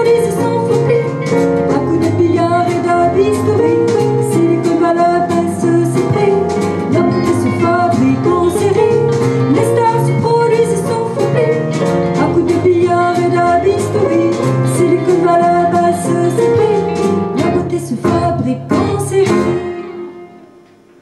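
Yamaha CP5 stage piano playing the last bars of a song, fading out near the end.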